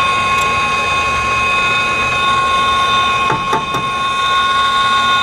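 Steady high-pitched mechanical whine over a low hum, with a couple of light metallic clicks about three and a half seconds in as a brass hose fitting is handled at the compressor's refrigerant stub.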